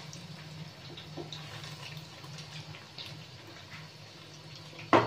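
Chicken spring rolls deep-frying in hot oil in a wok: a steady sizzle with small crackles as a wooden spatula turns them. A louder clatter comes right at the end.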